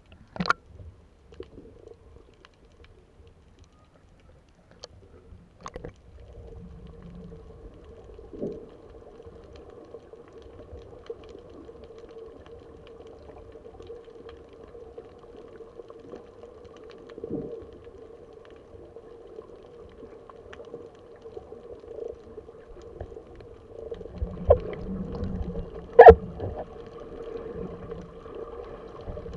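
Muffled underwater sound through a camera's waterproof housing: water swishing, with a steady low hum that sets in about six seconds in, and scattered sharp knocks, the loudest near the end.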